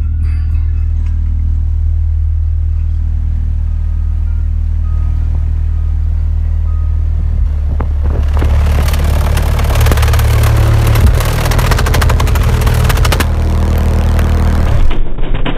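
Very deep, loud bass notes from four 18-inch Ascendant Audio SMD v2 subwoofers, blowing out of the box's port. About eight seconds in, a harsh rattling crackle joins them as the plexi mirror held over the port flaps in the air blast.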